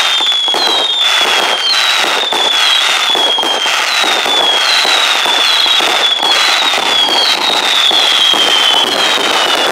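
Fireworks going off: short falling whistles one after another, more than one a second, over continuous crackling and sharp pops from the bursts.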